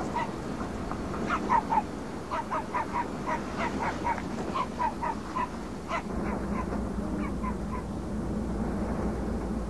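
Short, pitched animal calls repeated several times a second in loose runs, thinning out and stopping near the end, over a steady low engine hum.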